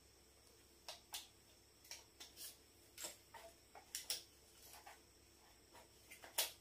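Faint, scattered clicks and taps, about a dozen irregularly spaced, from hands handling a selfie stick's plastic phone mount and a phone.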